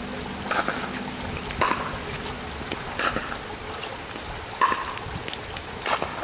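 Pickleball rally in the rain: five sharp pops of paddles striking the plastic ball, about a second and a half apart, over a steady hiss of rain on the wet court.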